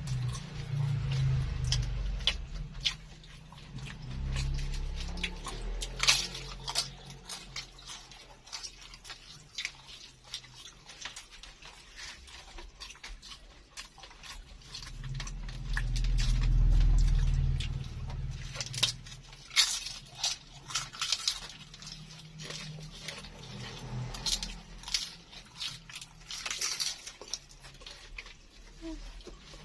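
Close-up chewing and crunching of crispy baklor, an egg martabak in a fried spring-roll wrapper, with scattered sharp crackles as it is bitten. A low rumble swells up about halfway through.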